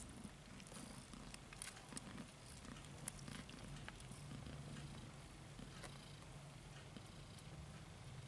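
A cat purring faintly and steadily, with scattered soft clicks over it, while kittens nurse.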